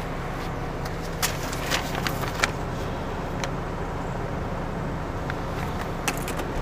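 Lorry's diesel engine idling steadily, heard from inside the cab, with a scatter of light clicks and paper rustling as sheets of delivery paperwork are handled.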